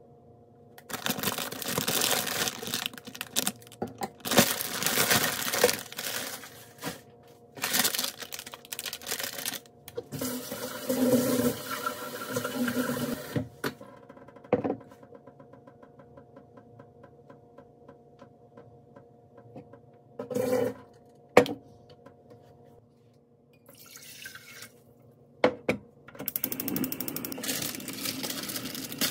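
A kitchen tap runs in several spells of a few seconds each while water is measured out, with sharp clicks and knocks of handling in between. Near the end, a sharp click is followed by a steady hiss as the gas burner under the pot is lit.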